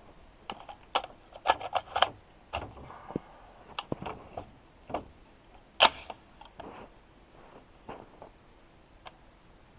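Handling noise: a string of irregular light clicks and knocks, the sharpest about six seconds in, thinning out toward the end. No gunshot.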